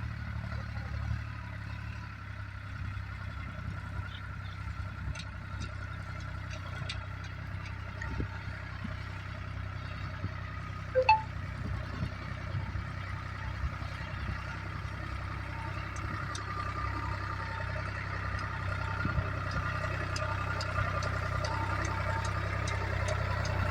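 A vehicle engine running steadily with a low hum, with scattered light clicks and a short, sharper sound about eleven seconds in.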